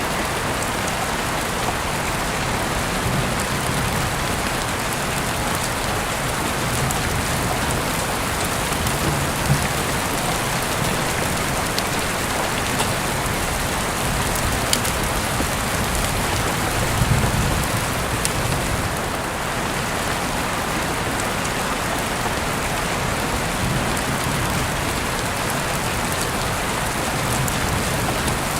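Steady rain falling, an even hiss of drops on surfaces, with a few soft low swells and occasional sharp ticks.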